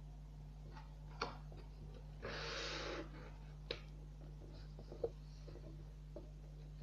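A sheet of paper being folded by hand: a few soft creasing clicks and a brief rustle about two and a half seconds in, over a steady low hum.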